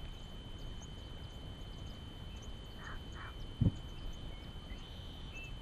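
Quiet open-water ambience with a steady low rumble and a faint steady high tone, a few brief faint animal calls, and a single low thump about three and a half seconds in.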